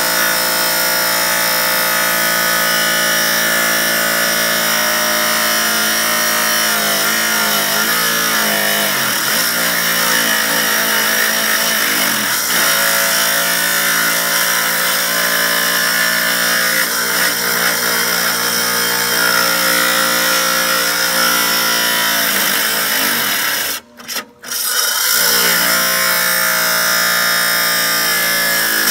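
Chicago Electric wet tile saw running and cutting. The motor's steady whine sags in pitch a few times as the piece is pushed through the blade. Near the end the sound drops out twice, briefly.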